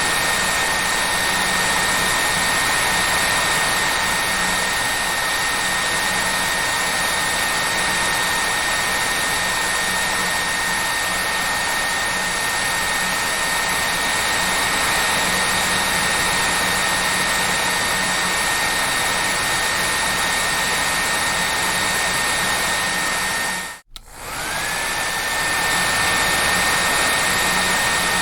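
Hair dryer running steadily: a loud airy rush with a high motor whine. About 24 seconds in it cuts out for a moment, and the whine climbs back up to speed.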